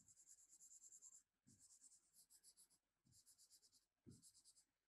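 Faint scratching of a pen drawing on a writing surface, in about five short strokes with brief pauses between them, as a dotted line is drawn on a diagram.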